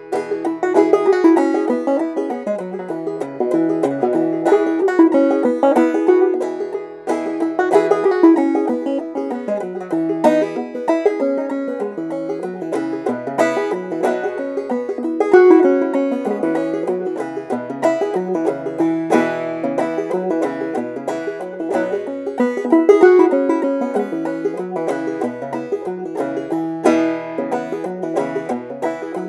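Solo banjo played clawhammer style: a fast, continuous run of plucked notes, with the rhythmic down-picking of an old-time tune.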